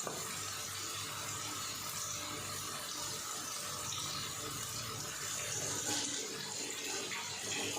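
Tomatoes cooking down into a sauce in a pan, giving a steady sizzling hiss.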